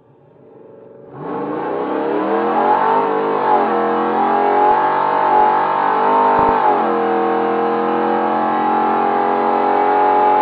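2011 Ram 1500 R/T's 5.7 HEMI V8, heard from inside the cab, launching at full throttle about a second in: the engine pitch climbs, drops at gear changes about three and seven seconds in, then holds high and steady under load.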